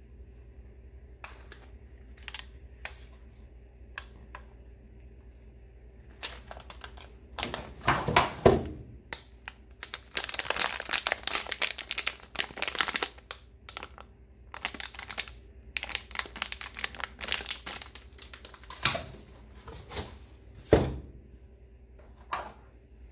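A crinkly silver foil bag holding cables being handled, crinkling densely for a few seconds in the middle, among scattered clicks of handling. Two louder knocks come about a third of the way in and near the end.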